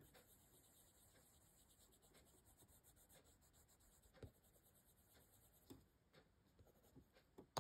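Faint scratching of a colored pencil shading on paper in quick repeated strokes, with a few light ticks in the second half.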